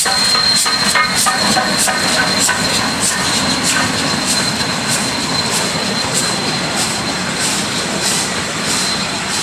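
DD17 class 4-6-4T steam tank locomotive passing close at speed with a regular exhaust beat about twice a second, then its train of carriages rolling by on the rails.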